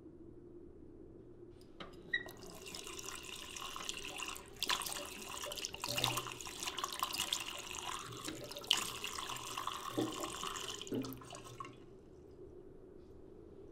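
Water running from a bathroom tap into the sink. It comes on with a click about two seconds in and stops near the end, uneven, with a few knocks and splashes as it is used.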